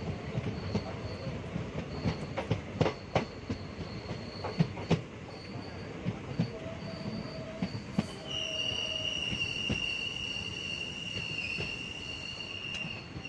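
ICF passenger coach wheels running over rail joints and points, giving irregular sharp clacks. About eight seconds in, a steady high-pitched wheel squeal sets in and holds.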